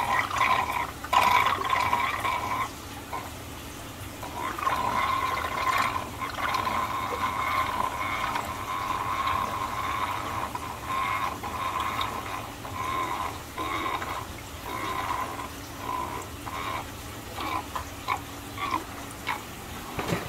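Aquarium water trickling and gurgling in an on-and-off stream, with scattered small knocks and splashes.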